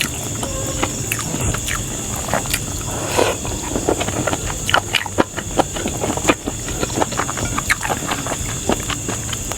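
Close-miked chewing and wet lip-smacking of a person eating, irregular clicks and smacks, over a steady hiss.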